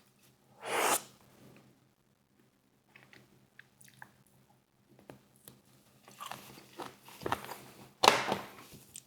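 Close-up eating sounds: biting into and chewing crispy fried chicken wings, with a loud crunch about a second in and a run of crunching chews building to another loud crunch near the end.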